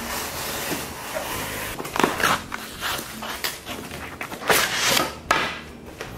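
Utility knife slitting the cardboard of a flat-pack box, a continuous scraping cut, then the cardboard flap pulled open with several sharp rustles and knocks as the box is handled.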